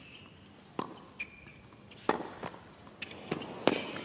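Tennis rally on a hard court: a string of sharp racket strikes and ball bounces, the loudest near the end, with short high squeaks of players' shoes on the court surface.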